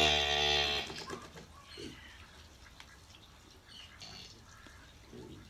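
A cow in labour moos once, a short call of under a second right at the start; after it there are only faint scattered sounds.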